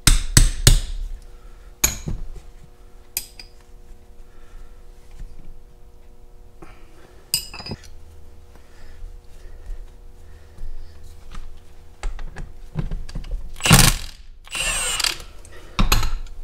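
Hammer blows on a steel punch driving parts out of a Farmall Super C's hydraulic pump body: three quick metal strikes in the first second, then two single blows over the next two seconds. Later come louder bursts of metal-on-metal scraping and rattling as the parts are worked loose, the loudest near the end, over a steady faint hum.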